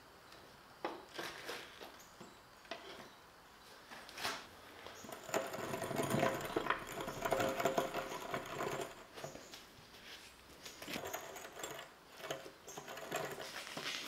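Hydraulic floor jack pumped by its long handle, its pump working with a quick repeated mechanical clatter and a squeak, busiest in the middle. A few knocks of a steel plate being set on the jack come in the first few seconds.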